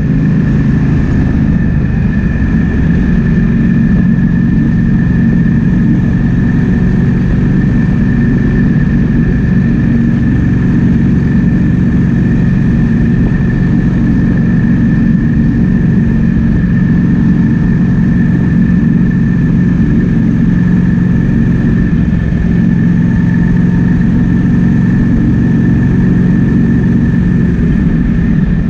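Triumph Speed Twin 1200's parallel-twin engine running at a steady, unchanging note while the motorcycle cruises, with wind noise over the microphone.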